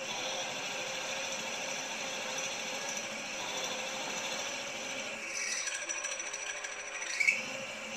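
Milling machine spindle turning a 9/32-inch twist drill as it cuts down into a metal casting, a steady mechanical whir. A higher thin tone joins from about five seconds in and ends with a short sharp squeak just after seven seconds.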